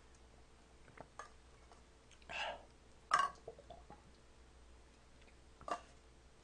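Sparse light clicks and taps of small plastic yogurt-drink bottles being handled on a tray, with two short, louder noises a little past two and three seconds in and a shorter one near the end.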